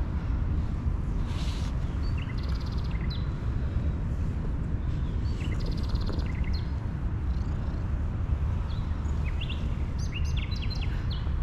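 Small birds chirping in short, high calls with a few raspy chatters, a cluster of quick chirps near the end, over a steady low rumble.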